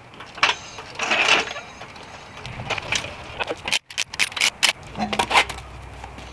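Sharp metallic clicks and clatter of wheel work on a car: a floor jack being worked, then lug nuts coming off and the rear wheel being pulled from the hub, with a dense run of clinks partway through.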